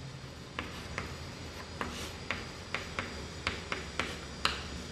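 Chalk writing on a blackboard: about a dozen sharp, irregular taps, two or three a second, with light scratching between them as the letters are formed.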